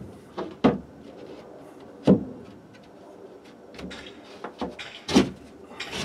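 A loose plywood panel knocking against a wooden shelf and plywood wall as it is set into place: a few sharp wooden knocks with fainter taps between, the loudest about two seconds in.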